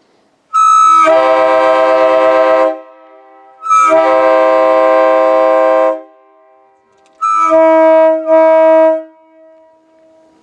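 Railroad air horn blown in two long blasts, then two shorter blasts close together near the end.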